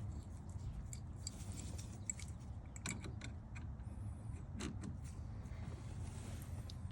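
Scattered light metallic clicks and rattles of a wrench on a screw-in turn signal lever as it is tightened into the steering column, over a low steady hum.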